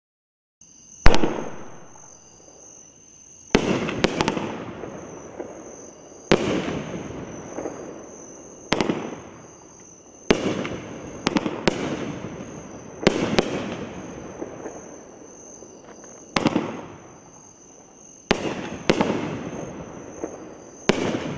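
A 500g multi-shot fireworks cake firing its shells one after another: sharp bangs every one to three seconds, often a crack doubled close together, each fading into a rumble of echo. The first bang, about a second in, is the loudest.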